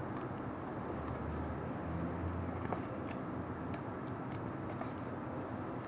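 Adhesive tape being handled and wrapped around a cardboard core: faint scattered ticks and crinkles over a steady low hum.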